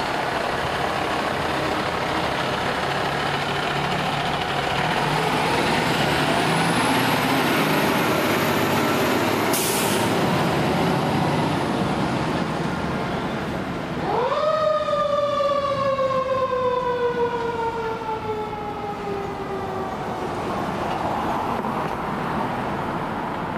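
Fire truck engine running as the ladder truck pulls away, with a short hiss of air about ten seconds in. About fourteen seconds in, a siren rises sharply and then winds down slowly in pitch over several seconds.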